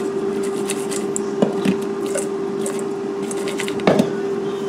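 Cosori smart air fryer running with a steady hum as it preheats. A few light knocks come from a stainless steel mixing bowl being handled, the loudest about four seconds in.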